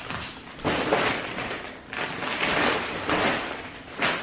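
Handling noise: irregular rustling in bursts as things are picked up and carried, with a sharp knock at the start and another near the end.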